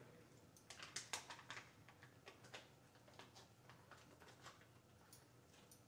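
Near silence with faint clicks and light rustling from a plastic bag and plastic measuring spoons being handled. The clicks come thickest in the first couple of seconds and thin out after.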